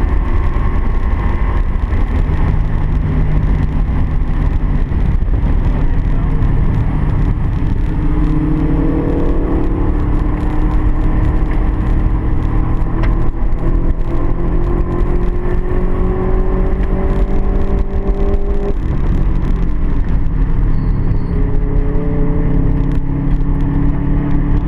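Car engine under hard acceleration on a race track, its pitch climbing steadily, dropping abruptly about three quarters of the way through, then climbing again.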